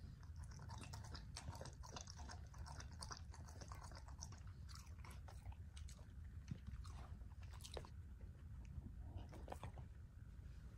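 A dog eating from its bowl, chewing and crunching its food in many small, quick crunches, over a faint steady low hum.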